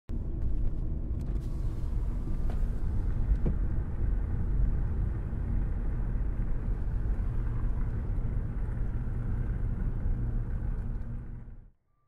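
A steady deep rumbling noise, fading out near the end.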